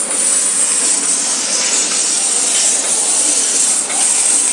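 Fiber laser cutting machine cutting 2 mm aluminum sheet: a loud, steady hiss of assist gas jetting from the cutting head's nozzle.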